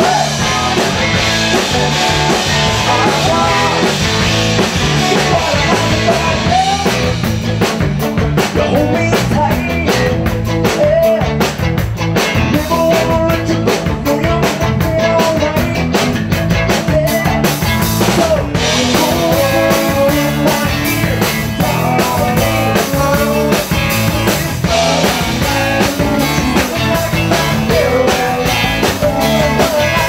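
Live rock band playing through a PA: drum kit keeping a steady beat under bass guitar and keyboard, with a voice singing.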